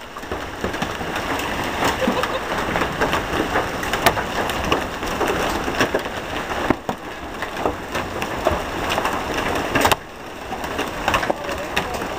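Heavy rain in a severe thunderstorm, with a dense hiss and many sharp crackles and pops against the microphone, dipping briefly twice.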